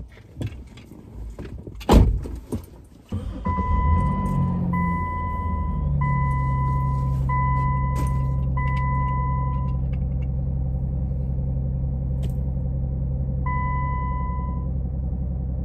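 A car door shuts with a loud thud about two seconds in. About a second later the pickup truck's engine starts, revs briefly and settles into a steady idle. Over the idle a two-tone dashboard warning chime sounds five times about a second apart, then once more near the end.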